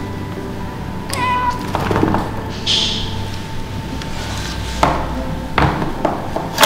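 Persian cat meowing once, briefly, about a second in. Several sharp plastic clicks follow as the pet carrier's wire door is fitted and latched, and the loudest comes near the end.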